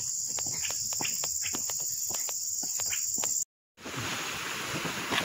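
Insects droning in a steady high-pitched buzz, with the irregular clicks of footsteps on the road. After a break about three and a half seconds in, a broad steady rush of river water takes over.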